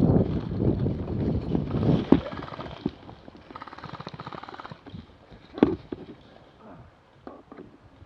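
Rustling and knocking close to the microphone, then a faint, rapid rattling burst of about ten shots a second from an airsoft electric rifle firing on full auto, and a sharp click near the end.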